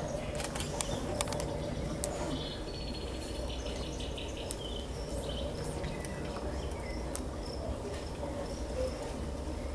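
Faint, scattered high chirps like birds or insects over a steady low room hum, with a few sharp clicks in the first two seconds.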